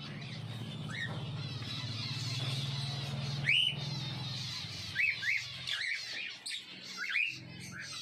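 A flock of peach-faced lovebirds chattering: a continuous high twittering with louder, sharp chirps standing out about a second in, near the middle, and several times in the last three seconds.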